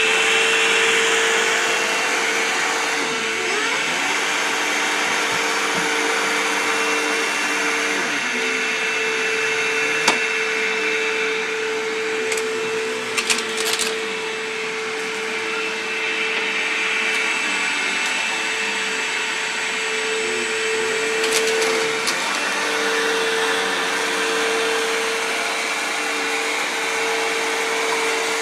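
Vacuum cleaner running steadily, a constant motor hum with hiss, pushed around by a toddler. A few short sharp clicks or knocks come through, about ten seconds in, around thirteen seconds and again a little past twenty seconds.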